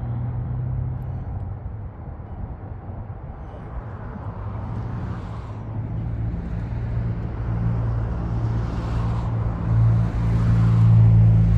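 EMD SD70ACe diesel locomotive running as it approaches slowly at the head of a loaded coal train. It makes a steady low hum that grows louder toward the end.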